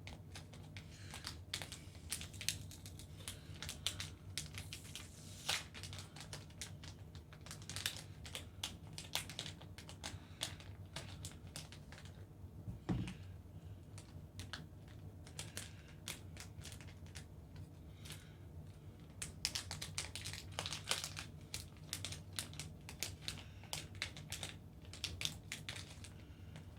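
Hands handling an NVMe SSD and its adapter and screws: many small irregular clicks and taps with some crinkling, and one louder knock about halfway through.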